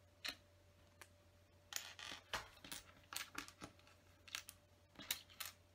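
Small plastic LEGO pieces clicking against each other and the tabletop as they are picked out of a loose pile: light, irregular clicks.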